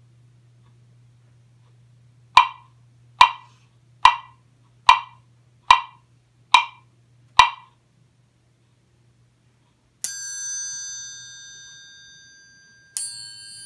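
Wood block struck with a mallet seven times at a steady beat, a little under a second apart: the cue to walk. After a pause a metal triangle is struck and rings out, fading slowly, then is struck again near the end: the cue to jump.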